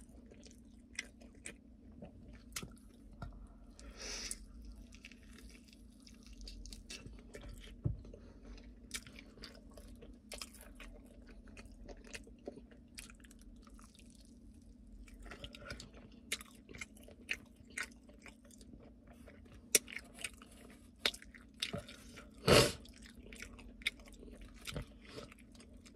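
Close-up chewing and wet mouth sounds of someone eating sauced chicken wings: irregular smacks and clicks, with one louder one about 22 seconds in, over a steady low hum.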